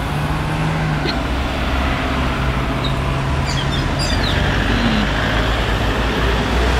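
Street traffic: motor vehicle engines running with a steady low hum as minibuses and cars pass on the road, with a few faint high chirps around the middle.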